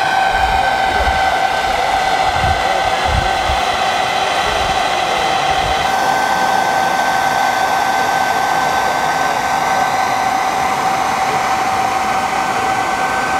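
Steady rushing whine of an electric blower fan fitted on the chimney of a 5-inch-gauge live-steam model class 01 locomotive, drawing the fire while the engine stands raising steam. A few low thumps sound in the first half.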